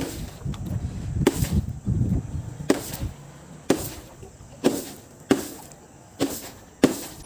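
A series of about seven sharp cracks, roughly one a second at uneven intervals, as something crunchy is broken or crushed.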